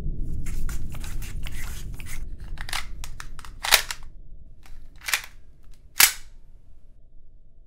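Pistol sounds: a quick cluster of sharp clicks and cracks in the first two seconds, then single sharp cracks, the loudest near four seconds and six seconds in, over a low rumble that fades early.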